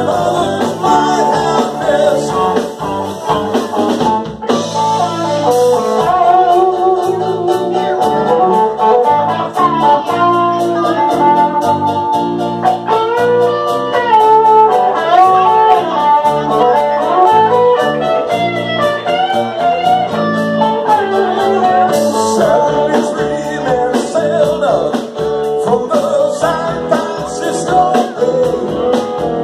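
Live band playing in a bar: electric guitars, bass, drum kit and keyboard, with a male singer singing into a microphone over them.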